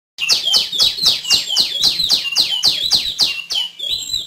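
Female tiểu my songbird calling: a fast series of sharp, downslurred notes at about four a second. The series starts and stops abruptly, over a faint low hum.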